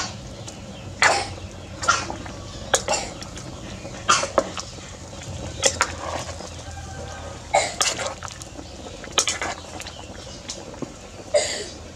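A metal spoon knocks and scrapes against the side of an aluminium cooking pot while soup is stirred: about eight short clanks, spaced irregularly a second or two apart.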